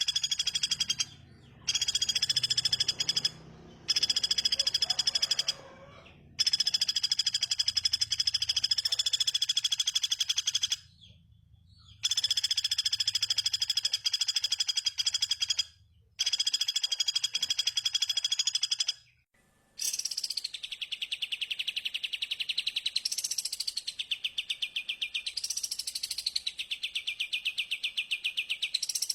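Small songbird song: high, rapid trilled phrases a few seconds long, broken by short abrupt gaps. About two-thirds of the way through it gives way to a different fast pulsing chatter with rising-and-falling sweeps about every two seconds.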